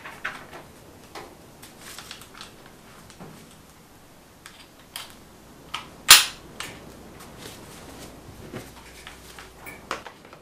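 Light clicks and ticks from a Bosch cordless jigsaw being handled, with one sharp, loud plastic snap about six seconds in.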